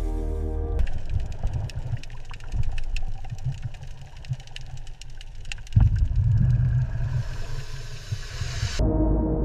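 A low, engine-like mechanical rumble with rapid clicking over it, growing louder about six seconds in. Music fades out at the start and comes back near the end.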